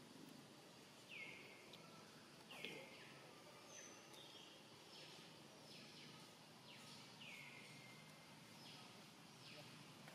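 Faint, repeated short high-pitched calls, each falling quickly in pitch, about one a second over a low background hiss.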